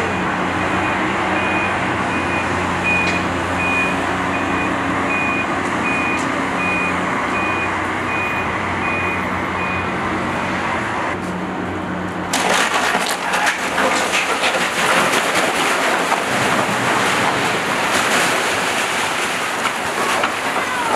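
A demolition excavator's diesel engine runs steadily while a backup alarm beeps about once a second. About twelve seconds in this gives way to loud crashing and crackling as brick masonry and debris break apart and fall in a collapse.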